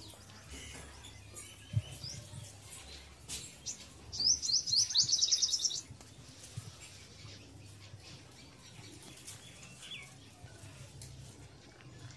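A bird chirping: a quick run of high chirps, about eight a second, lasting a second and a half near the middle, over a faint low hum.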